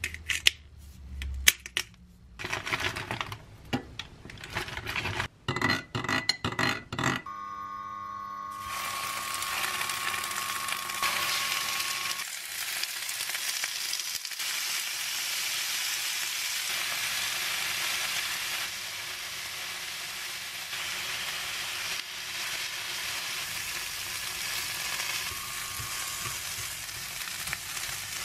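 A metal spoon clinking against a glass bowl as a sauce is stirred, then, from about eight seconds in, food frying in oil in a frying pan: tofu cubes and then stir-fried onion and broccoli sizzling steadily.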